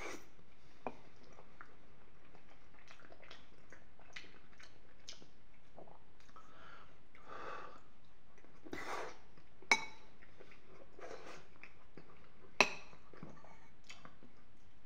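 Close-up chewing and wet mouth sounds of someone eating soft penne pasta in béchamel sauce with peas. Two sharp clicks of metal cutlery, the loudest sounds, come about ten and twelve and a half seconds in.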